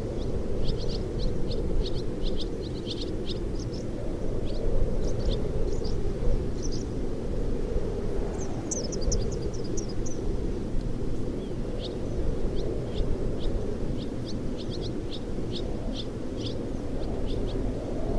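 Wind blowing through the open doors and sagging window frames of an old wooden shack, a steady low rush. Swallows chirp over it in quick short notes, with a brief run of higher, faster chirps about halfway through.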